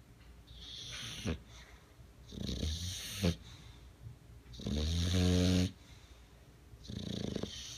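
English bulldog snoring in its sleep: four snoring breaths about two seconds apart, the third a long, pitched snore and the loudest.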